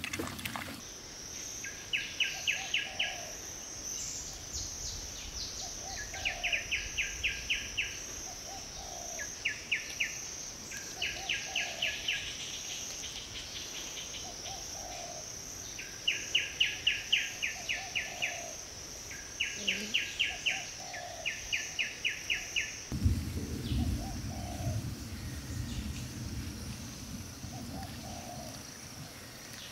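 Insects and birds calling: a steady high-pitched insect drone, with several short bursts of fast pulsing trills and a soft low note repeating every second or two. A low rumbling noise comes in about three-quarters of the way through.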